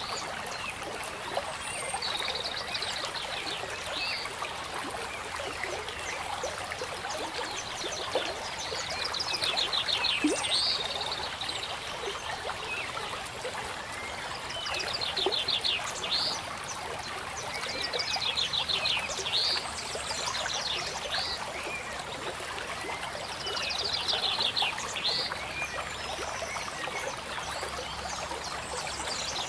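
Running water, like a stream, with a trilling call of rapid pulses and quick chirping glides repeating about every five seconds.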